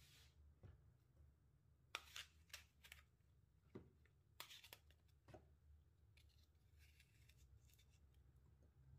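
Faint kitchen handling noises: a scattering of light clicks and scrapes, heaviest in the middle, over a low steady hum.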